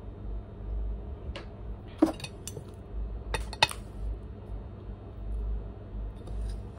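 A metal spoon clinking and scraping against a glass bowl as chunks of Argo cornstarch are scooped, a handful of sharp clinks between about one and four seconds in.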